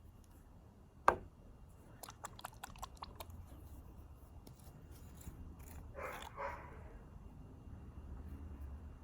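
A sharp knock about a second in, then a quick run of light clicks, and about six seconds in a dog barks twice.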